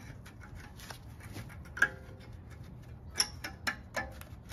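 Steel anti-rattle spring clip being fitted onto a brake caliper: a few sharp metallic clicks and taps, the loudest a little under two seconds in, then three more quickly near the end.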